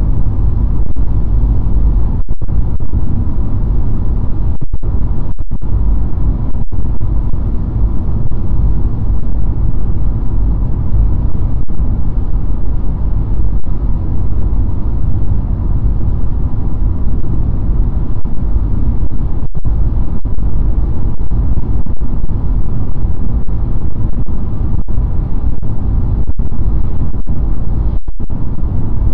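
Loud, steady low rumble of a car driving: road and wind noise, with the sound cutting out for an instant a few times.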